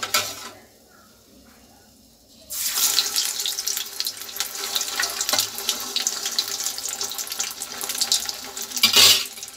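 Bread rolls stuffed with spiced potato hitting hot refined oil in a kadhai: the oil starts sizzling and crackling suddenly about two and a half seconds in and keeps up a dense sizzle, briefly louder near the end.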